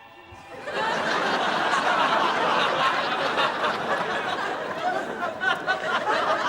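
Studio audience laughing, breaking out about half a second in and running on loudly for several seconds.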